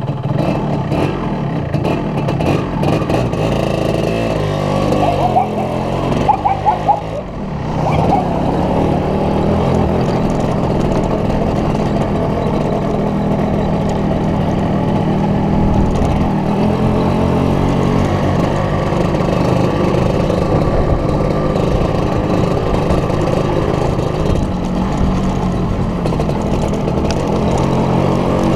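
1988 Yamaha RD135Z two-stroke motorcycle engine running under way, its pitch shifting and the level dipping briefly about seven seconds in, then holding a steady note.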